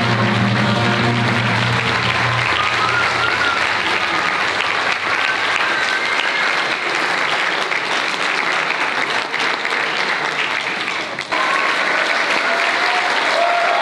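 Audience applauding, with the last held chord of the music dying away in the first few seconds. The applause dips briefly about eleven seconds in, then carries on.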